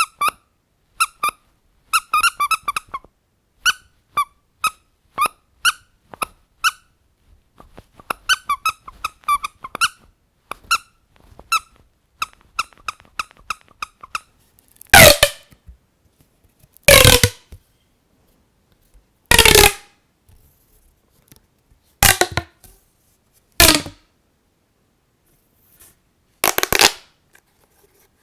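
A squeaky dog toy squeezed over and over, giving quick short squeaks for about the first half, then six louder, longer and rougher squeaks a couple of seconds apart.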